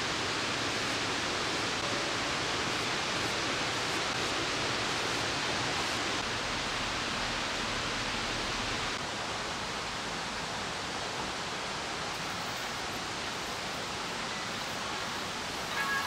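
Steady, even rushing noise of outdoor ambience, stepping down slightly about nine seconds in.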